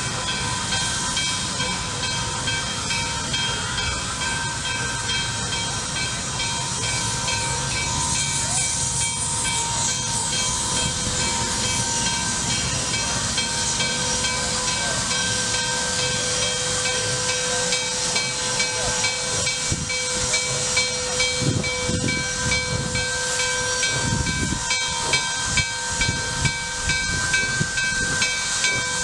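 Nickel Plate Road 765, a 2-8-4 Berkshire steam locomotive, approaching slowly with a steady hiss of steam and its bell ringing at an even beat. In the last several seconds slow exhaust chuffs come in, about one a second and growing louder as it nears.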